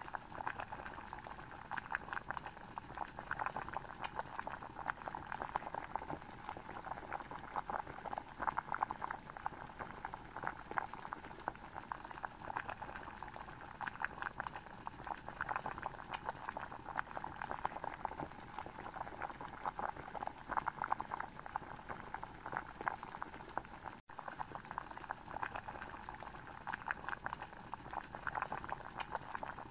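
Thick tomato curry gravy bubbling at a simmer in a pan, a dense, steady crackle of small popping bubbles.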